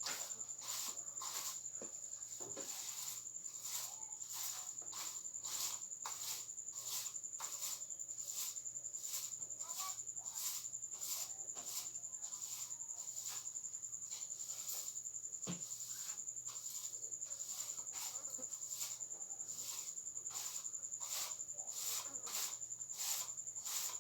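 Crickets chirping at dusk: a steady high trill with a second, pulsing chirp repeating about twice a second.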